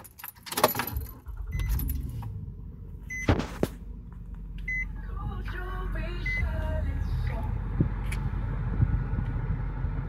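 Keys jangle in the ignition of a 2007 Nissan Murano, then its V6 engine starts and runs at a steady idle. A short high beep sounds four times, about a second and a half apart.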